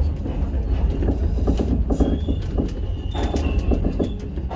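Passenger train running on rail, heard from inside the carriage: a steady low rumble with many sharp wheel-on-rail clicks and a few brief high-pitched wheel squeals.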